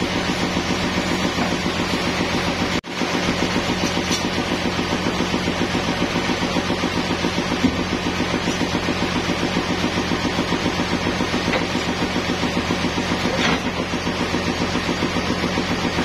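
Sawmill engine running steadily at an even speed with a fast, regular throb, with no cut under way. The sound drops out for an instant about three seconds in.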